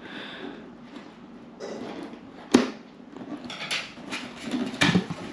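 Packaging of a drone accessory box being cut open and handled: rustling and scraping, with one sharp knock about two and a half seconds in and a run of smaller clicks and knocks near the end.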